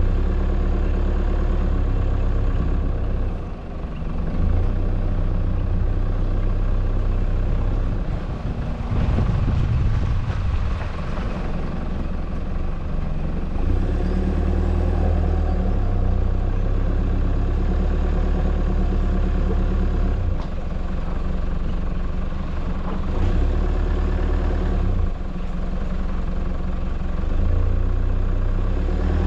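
A four-wheel-drive vehicle's engine running as it drives slowly over dirt tracks. Its low note steps up and down several times, with a rougher, louder rumble about nine seconds in.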